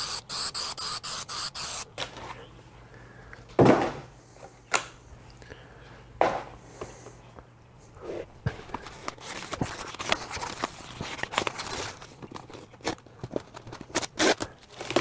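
Aerosol spray adhesive hissing in short bursts for about the first two seconds, then a thin plastic sheet rustling and crinkling as it is folded over and pressed down by hand, with a few sharp crackles.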